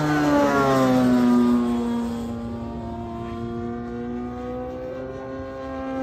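EME 60cc single-cylinder two-stroke gas engine of a large RC model plane, turning a 22x10 propeller through a canister muffler, running hard on a fly-by. Its pitch drops over the first two seconds as the plane passes overhead at its loudest, then holds steady and grows a little quieter as it flies away.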